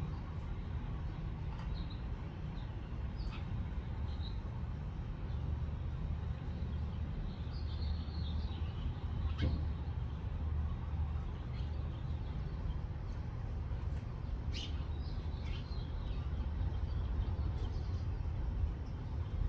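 Small birds chirping in short, scattered calls, with a burst of chirps around the middle and another about three-quarters through, over a steady low rumble.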